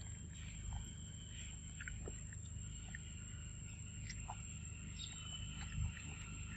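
A macaque biting and chewing a ripe mango: faint, scattered wet chewing clicks over a low steady rumble, with a faint steady high tone throughout.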